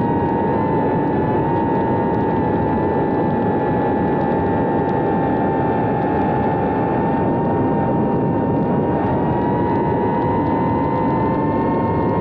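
Brushless motors and ducted propellers of a GEPRC Cinelog 30 cinewhoop FPV drone in flight, recorded by its onboard camera: a steady high whine over rushing prop wash, the pitch rising slightly near the end.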